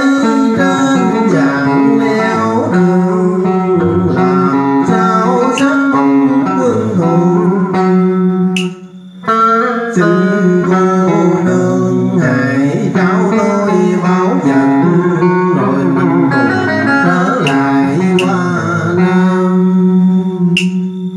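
A man singing southern Vietnamese đờn ca tài tử, accompanied by plucked electric guitar. The music breaks off for about a second roughly nine seconds in, then resumes.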